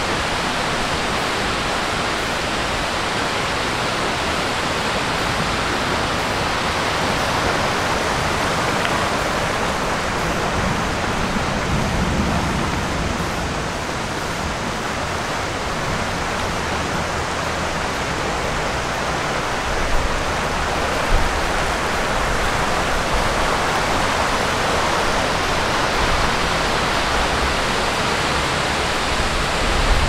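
Steady, unbroken rush of a tall waterfall, about 80 metres high, falling into a rocky river.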